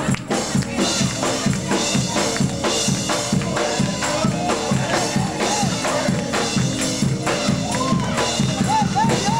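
Upbeat gospel dance music with a steady drum-kit beat and a repeating bass line.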